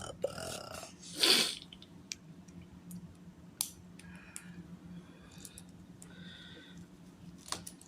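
Plastic LEGO Technic parts being handled and snapped together: scattered light clicks and ticks, with one short louder rustle about a second in.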